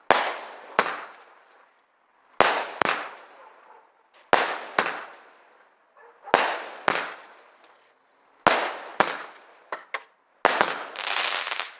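A multi-shot firework going off: sharp bangs in pairs about every two seconds, each pair fading out in a crackling tail. Near the end the bangs come quicker and run into a dense crackle.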